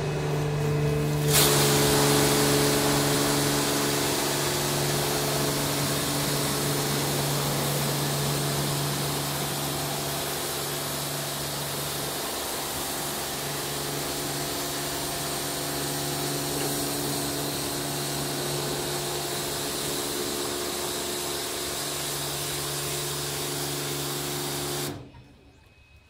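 Stargate S6 automatic car wash gantry spraying water over a car: a loud, steady hiss of spray over a steady machine hum. The spray starts suddenly about a second and a half in and stops about a second before the end.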